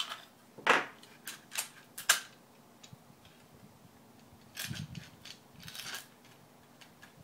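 Sharp clicks and clacks of small steel hardware and hard plastic parts being handled, including a button-head bolt set down on a wooden tabletop, followed by two longer, softer handling noises a little past the middle.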